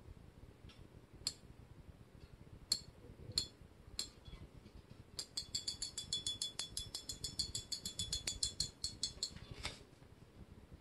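Drag of a Shimano 15 Stradic C4000HGM spinning reel giving line under a steady pull. A few single clicks come first, then from about halfway a fast, even run of drag clicks, about ten a second, for some four seconds. The even clicking is the sign of smooth, steady drag release.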